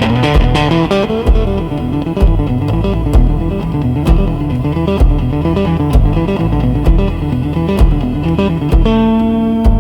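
Instrumental blues music: a plucked guitar line over a steady beat, with a long held note coming in near the end.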